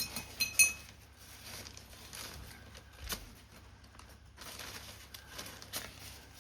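Paper-craft work sounds: paper rustling and small taps and clicks as parts are handled, with a ringing clink near the start and a sharp click about three seconds in.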